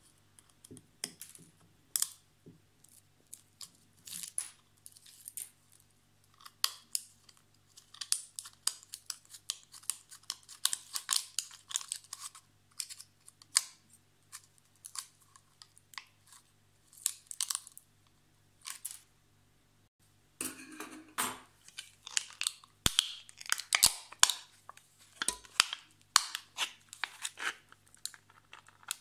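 Scissors snipping through a thin aluminium beer can and the can's metal crinkling and tearing as it is peeled off a set cement cast. Irregular snips and crackles, with a short pause and then denser crackling in the last third.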